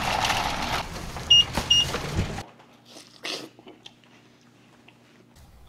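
Two short, high electronic beeps about half a second apart over a steady noisy background, which then cuts off suddenly to a faint low hum with a few soft knocks.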